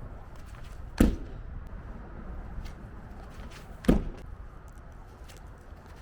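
Two heavy, sharp thuds, about a second in and again about three seconds later, in a steady training rhythm. Each is an object landing hard during throwing or gym exercise.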